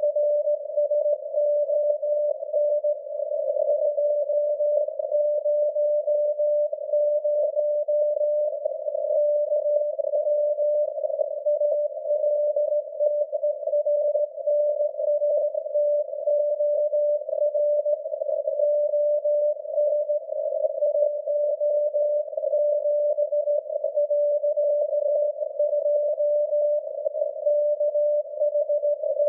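VLF signal from SAQ Grimeton's Alexanderson alternator transmitter on 17.2 kHz, received in CW mode as a steady tone of about 600 Hz buried in heavy, fluttering band noise.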